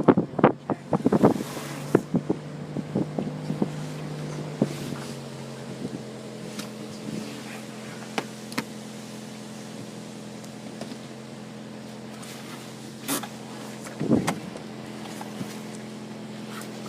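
A car engine running steadily with a low, even hum that shifts in pitch about four and a half seconds in.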